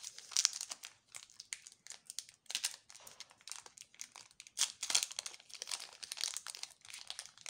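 Foil wrapper of a Yu-Gi-Oh! Battle Pack 2 booster pack crinkling as it is worked open by hand: a dense, irregular run of sharp crackles.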